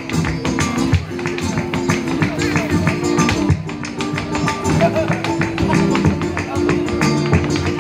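Live flamenco music played on acoustic guitar and violin, the violin holding sustained notes over the guitar, with sharp percussive taps throughout.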